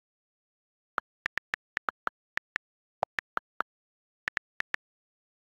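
iPad on-screen keyboard click sounds, about seventeen quick taps in uneven runs as text is typed. One click, about three seconds in, is lower-pitched than the rest.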